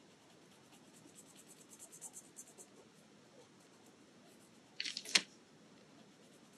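Faint scratching of a uni-pin fineliner pen on paper in short quick strokes as small triangles are filled in black, with a brief louder cluster of clicks about five seconds in.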